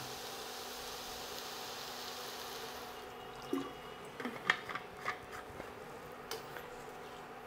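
Milk poured from a bottle into a steel pan of grated carrots frying in ghee, hissing for about three seconds as it hits the hot pan, then a few light clicks and taps.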